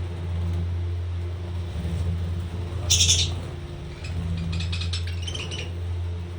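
Pet parrots calling: one harsh screech about three seconds in, then a quick run of chirps and squawks, over a steady low hum.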